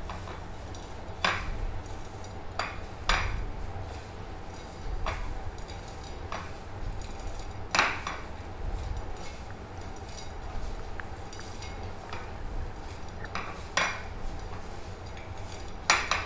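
Hand mixing dry shredded samosa-sheet strips with cornflour on a ceramic plate: the strips rustle softly, and the plate clicks and knocks now and then, about a dozen times at irregular intervals.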